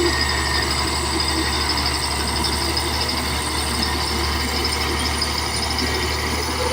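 Caterpillar D8 bulldozer's diesel engine running steadily, with a constant high turbo whine over the low engine note.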